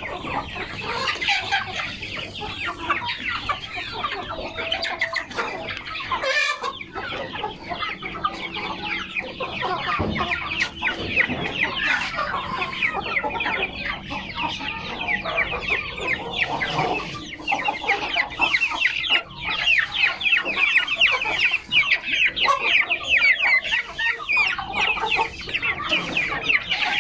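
A flock of young Aseel chickens calling while they feed: many short, high clucks and peeps overlapping in a continuous chatter, denser in the second half.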